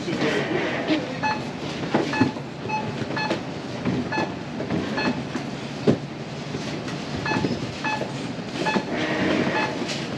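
Grocery checkout barcode scanner giving short, identical beeps every second or so as items are scanned, over the clatter and rustle of groceries and plastic bags being handled.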